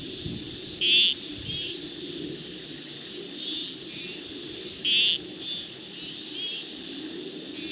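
Night chorus of frogs and insects: a steady high-pitched drone under short trilling calls repeated every second or so, the loudest about a second in and again about five seconds in, over a low continuous chorus.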